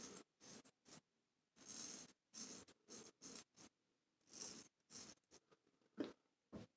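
Straight razor scraping lathered stubble on the cheek and neck in a quick run of short strokes, with one longer stroke about two seconds in.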